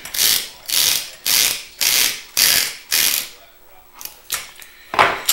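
Masking tape peeling off its roll in a quick series of pulls, about two a second, as it is wound onto a fishing rod blank to build up a reel seat arbor. The pulls stop about three seconds in, and a single sharper sound comes near the end.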